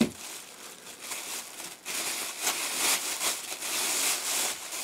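Clear plastic bag crinkling and rustling as a camera stabilizer part is unwrapped from it by hand, getting louder from about two seconds in.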